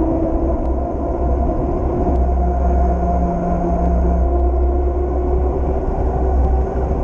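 Wind buffeting the microphone of a camera riding on a moving bicycle, a steady low rumble, with road noise and a steady hum from the bike's tyres rolling on the asphalt cycle path.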